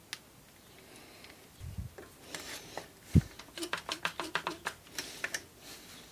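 Metal clicks and knocks as a Gamo air rifle's action is set between the jaws of an Irwin Quick-Grip bar clamp for reassembly: a dull thud, then one sharp knock about three seconds in, followed by a quick run of clicks.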